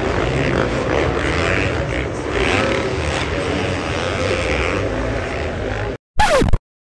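Supercross dirt bike engines buzzing and revving around the stadium track, echoing in the stands, cut off abruptly about six seconds in. A short, loud sound with a falling pitch follows, then silence.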